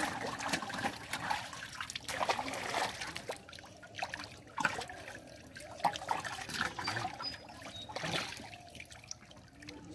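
Carp crowded in a seine net thrashing in shallow pond water: irregular splashes over a steady trickling of water.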